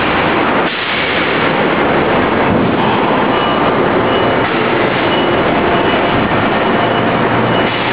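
Steady, loud machinery noise from a robotic spot-welding line: a dense, even rumble and hiss with a few faint steady tones and no distinct strikes.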